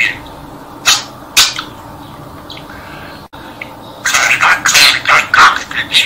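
Budgerigar giving two short chirps about a second in, then a fast run of chattering warble from about four seconds.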